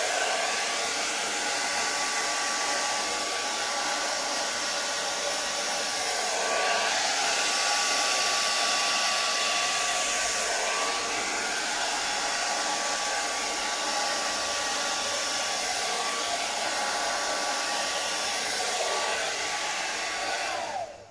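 Handheld hair dryer running steadily, blowing air over wet poured paint, a steady rush with a thin whine. About twenty seconds in it is switched off, and the whine falls in pitch as the motor runs down.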